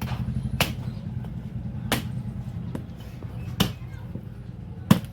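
A butcher's cleaver chopping through a goat head: about five sharp blows at uneven intervals, the last the loudest. A low engine hum runs underneath and fades out about three seconds in.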